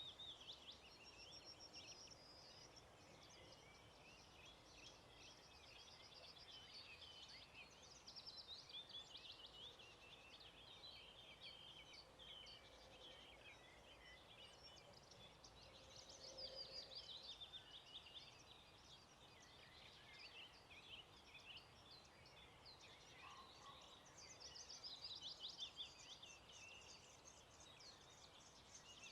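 Faint dawn chorus of many songbirds singing at once: overlapping high chirps and trills, swelling a few times, over a soft steady hiss.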